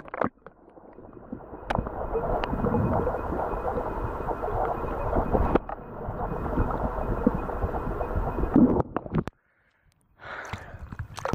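Lake water heard through a camera held underwater beside a swimmer treading water: a muffled, dull rumble and sloshing with a few sharp clicks. About nine seconds in it cuts out briefly, then brighter splashing and lapping follows as the camera breaks the surface.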